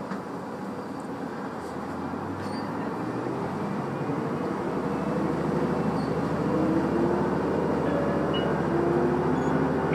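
Diesel railcar pulling away from a station, heard from inside the carriage. The engine's drone deepens and grows steadily louder, its pitch rising as the train gathers speed.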